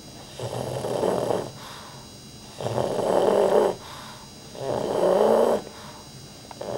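Pug snoring in its sleep: three loud snores about two seconds apart, each lasting about a second, with a fourth starting near the end.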